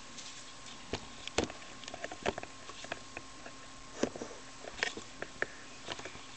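Scattered faint clicks and taps, spaced irregularly, over a faint steady electrical hum.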